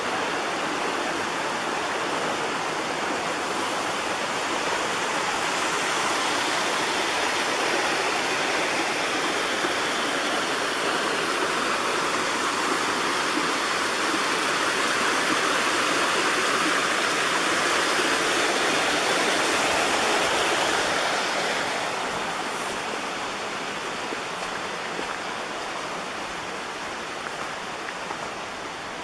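Rushing water of a forest creek, a steady hiss that grows louder through the middle and fades over the last several seconds.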